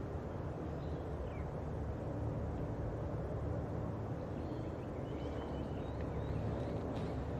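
Distant diesel locomotives hauling a freight train, a steady low rumble heard from across the water. A few bird chirps sound about a second in and again later.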